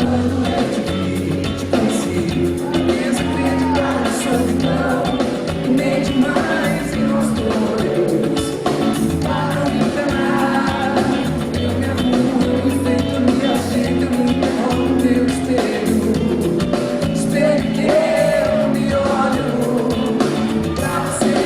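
Live band music with a woman singing over bass and other instruments, loud and steady.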